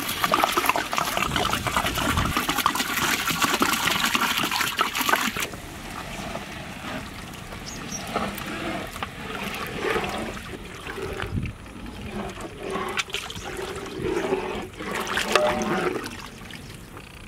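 Water poured in a steady stream into a large pot of thick mutton stew, loud and rushing for about five seconds before it stops. After that comes a quieter, irregular sloshing as a perforated metal ladle stirs the soup in the pot.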